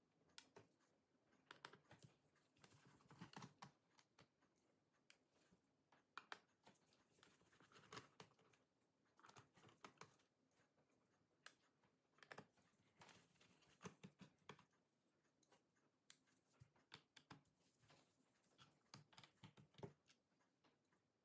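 Faint, irregular clicks and light taps of a small screwdriver backing out a laptop's bottom-cover screws, and of the tiny screws being set down on the cover.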